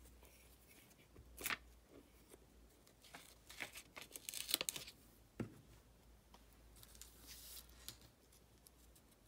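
Old book-page paper being torn by hand, crackling through a couple of seconds in the middle, with a sharp tap before it and another after it, and a fainter rustle near the end.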